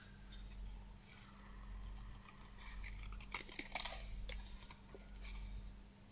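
Small craft scissors snipping by hand through thin white card, cutting out stamped leaves: faint, short snips, several in quick succession about three to four seconds in.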